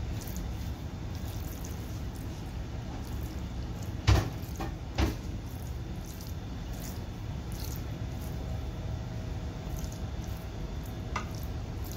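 Wooden spatula squishing and scraping as it spreads cooked minced mutton over sauce-coated macaroni in a glass baking dish. Two sharp knocks about four and five seconds in.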